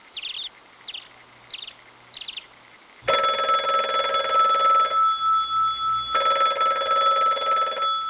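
Corded telephone ringing twice, each ring about two seconds long with a short gap between, the tone lingering as the second ring fades. Before the rings, four short high chirps.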